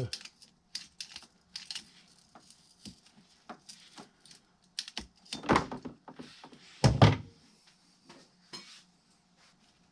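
A blue hand hose cutter clicking and snapping as it bites through a hydraulic steering hose, a string of short sharp clicks. A heavier knock comes about five and a half seconds in, and the loudest thunk about seven seconds in.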